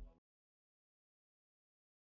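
Digital silence: the tail of electronic music dies away in the first moment, then nothing at all.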